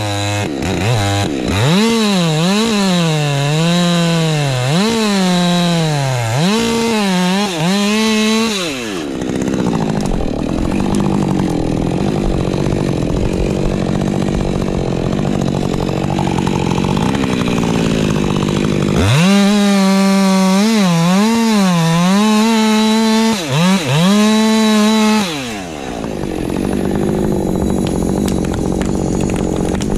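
Ported Husqvarna 550 XP Mk II two-stroke chainsaw cutting wood, its engine pitch rising and dipping over and over as the chain loads up in the cut. For about ten seconds in the middle the sound turns rougher with no clear pitch. The saw then cuts again and settles to a steadier, lower note near the end.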